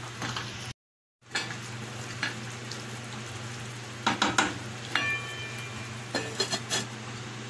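Mutton heart and kidney sizzling in masala in an aluminium pan, stirred with a wooden spatula, with a cluster of knocks and a brief metallic ring from the pan. Near the end come more clattering knocks as the aluminium lid goes onto the pan. The sound cuts out for about half a second just under a second in.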